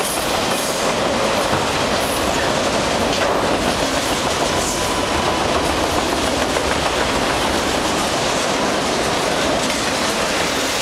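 CP freight train of empty autorack cars rolling past close by at speed: a steady, loud noise of steel wheels running on the rails.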